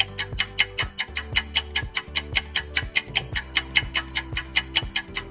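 Clock-style ticking sound effect for a quiz countdown timer, a fast even tick several times a second, over background music with sustained low notes.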